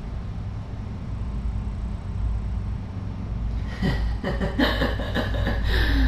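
A woman laughing in short, broken pulses, starting about four seconds in. Before that there is only a steady low hum.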